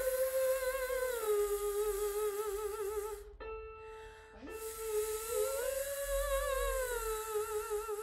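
A singer sustaining a buzzing voiced "vvv" fricative, a vocal exercise for breath support: two long phrases, each swelling up a little in pitch and sliding back down with a slight vibrato, with a short break about three seconds in.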